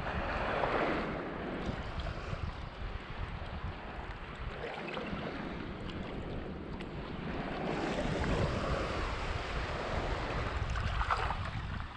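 Small waves washing on a sandy beach, swelling louder about a second in and again later, with wind buffeting the microphone as a low rumble.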